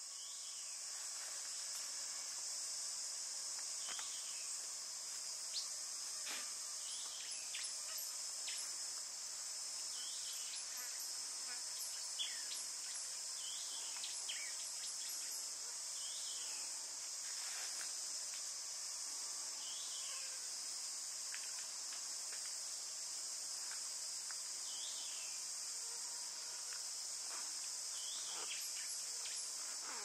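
A steady, high-pitched drone of insects, unbroken throughout. Short rising-and-falling chirps from birds come over it every second or two.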